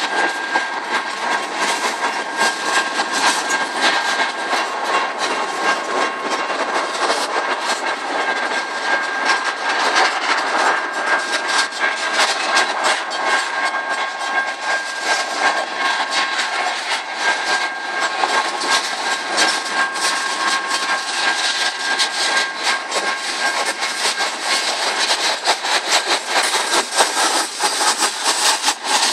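CSX freight train cars rolling past, wheels clacking and rattling over the rails in a continuous dense noise. Thin, high steady tones come and go over it.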